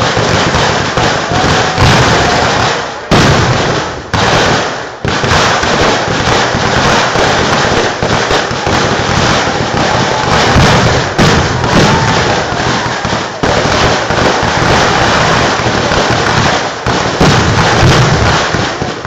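Kerala temple-festival fireworks (poovedi): a dense, unbroken barrage of firecrackers and fireworks bursting and crackling, with short dips about three and five seconds in.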